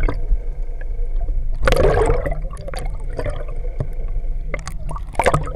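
Water splashing and gurgling on a fishing boat over a steady low rumble, with a louder splash about two seconds in and scattered knocks.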